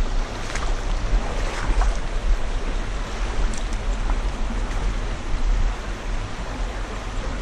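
Small rocky creek running and trickling, with wind buffeting the microphone in a steady low rumble.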